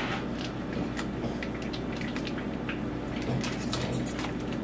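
Crinkling and crackling of a foil cheese packet being torn open by hand, scattered at first and thickest about three and a half seconds in.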